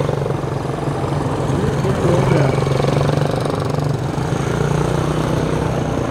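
Several small step-through motorcycles running as they circle, a steady buzzing engine drone with engine pitch rising and falling a little as they pass and change speed.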